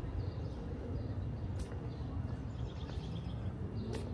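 City park ambience: small birds chirping repeatedly, with a short rapid trill about two and a half seconds in, over a steady low rumble of distant city noise. Two sharp clicks, one about a second and a half in and one near the end.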